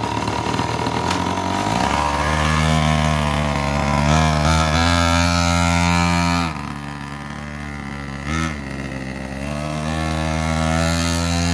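Pocket bike's small 50cc two-stroke engine running and revving as the bike pulls away. Its revs climb, drop back sharply a little past halfway, give a brief blip, then pick up again near the end.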